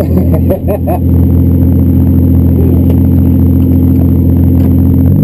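Lexus drift car's engine running steadily at a constant idle while the car sits still, heard loud from inside the caged cabin, with a brief wavering in pitch in the first second.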